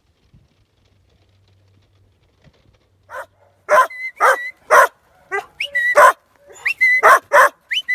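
Working sheepdog barking at sheep in a narrow race, a quick run of about ten loud, sharp barks: the dog is forcing the sheep forward. The barking starts about three seconds in, after near silence.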